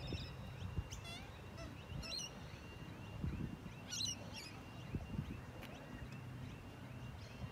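Black swans calling with a few short, wavering bugle-like honks, over a regular series of short high chirps repeating about twice a second.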